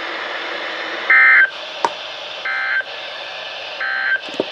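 NOAA Weather Radio's EAS end-of-message signal: three short bursts of buzzing SAME digital data tones, with about a second of radio hiss between them. The first burst is the loudest. A couple of faint clicks sound in the reception.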